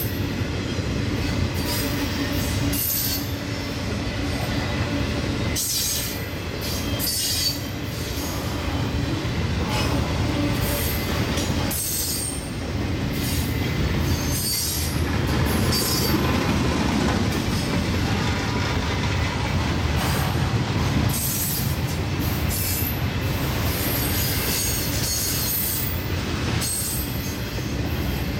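Norfolk Southern piggyback freight train rolling past with a steady rumble, its wheels squealing on and off against the rails.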